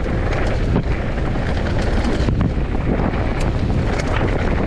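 Wind buffeting an action camera's microphone as a mountain bike rides down a rocky technical trail, the tyres rumbling over dirt and rock, with frequent sharp knocks and rattles from the bike.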